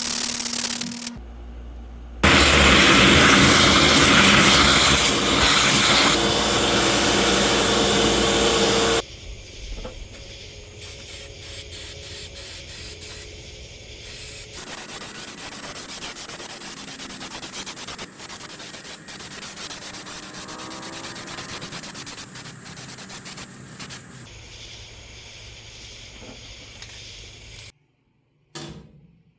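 Workshop noise from work on a rusted metal license plate, in several cut-together takes. There is a loud, steady noise with a hiss for about seven seconds, then quieter rubbing and scraping, and it stops abruptly near the end.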